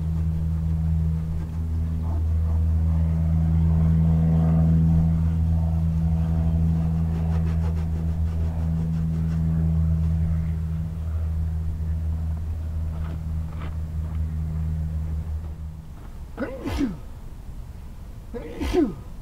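Case 1190 tractor's engine running at a steady speed, then shut off about sixteen seconds in. Two short, sharp squeaky sounds follow near the end.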